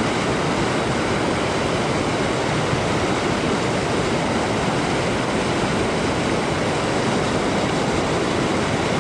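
Small waterfall pouring into a river pool: a steady rush of falling water.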